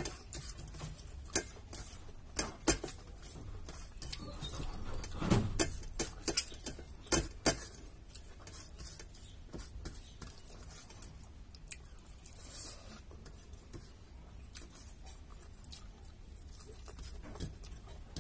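Eating by hand: fingers mixing and scooping rice on a stainless steel plate, with chewing and scattered light clicks and smacks, busiest and loudest from about five to seven and a half seconds in.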